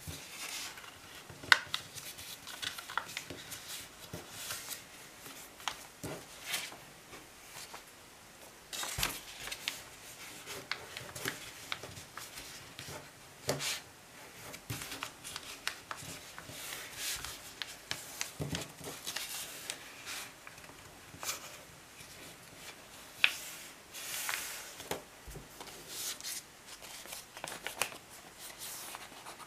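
A sheet of A4 paper being folded and creased by hand into a paper airplane: irregular rustling and crinkling, with short sharp taps as the folds are pressed down.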